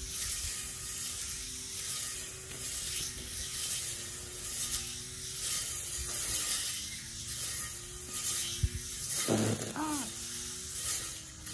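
Battery-powered weed eater with a cutting blade running, its motor whine wavering and dipping in pitch over a steady hiss. A little after nine seconds in there is a brief rise and fall in pitch.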